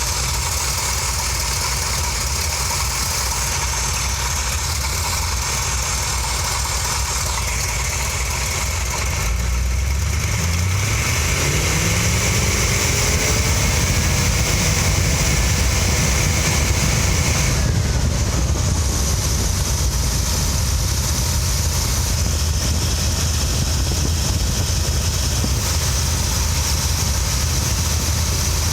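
Mopar 340 small-block V8 idling steadily, rated better but not perfect after a rough, rich idle was traced to a worn distributor cap and rotor. About a third of the way in it gets a little louder and a whine rises in pitch over a few seconds, then holds steady.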